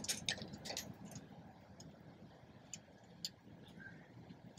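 Scattered light clicks and ticks: a quick cluster in the first second, then a few sparse single ticks, with a short faint chirp near the end.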